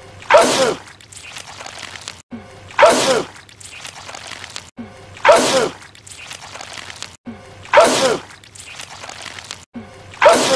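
A man sneezing loudly and wetly, spraying goo: the same sneeze repeats five times, about every two and a half seconds, each cut off by a short dropout where the clip loops.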